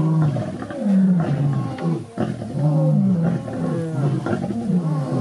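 Lions at a kill calling with a run of low moaning calls, each falling in pitch, coming one to two times a second.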